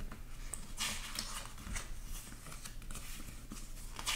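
Paper pages of a small hardcover book being turned by hand, with soft rustles and flicks. There is a louder paper swish about a second in and another near the end.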